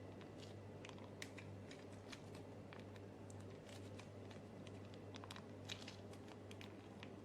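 Faint, irregular small clicks and crinkles of hands working a plastic honey sachet over sliced ginger, against a steady low electrical hum.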